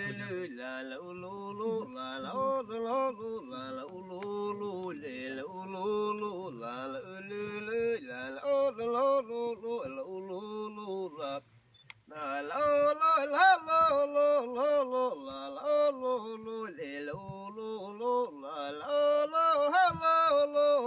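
A man singing a Sámi joik unaccompanied: a single voice holding and bending wavering, chant-like notes. He breaks off briefly a little past halfway, then comes back slightly higher and louder.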